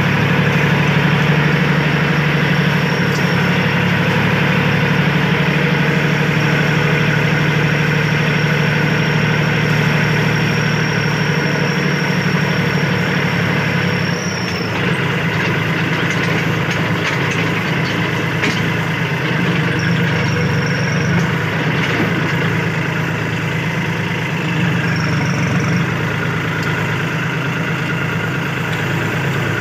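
Kubota L4018 tractor's diesel engine running steadily under way, heard from the driver's seat; about halfway through, the engine note changes and eases slightly as the tractor slows toward the road.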